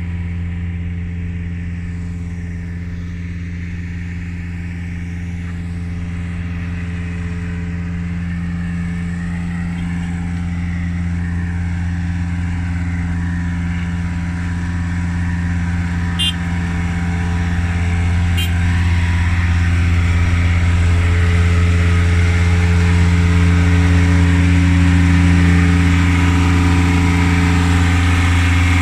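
An engine running at a steady speed with a constant low hum, growing somewhat louder through the second half, with two short clicks about two seconds apart midway.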